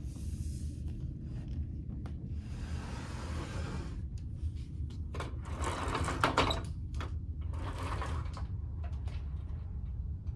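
Steady low drone of the ferry Ishikari's engines heard inside a passenger cabin at sea. Several short bursts of handling noise cut across it, the loudest about six seconds in.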